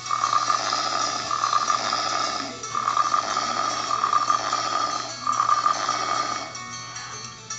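Cartoon snoring sound effect for a sleeping clay figure, repeated in long snores of about two seconds with short breaks between them, stopping shortly before the end, over background music.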